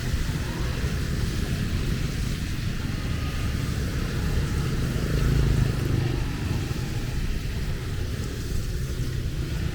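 Rain falling with road traffic on a wet road: cars and motorbikes make a steady low rumble under the even hiss of rain. The rumble swells briefly about five seconds in.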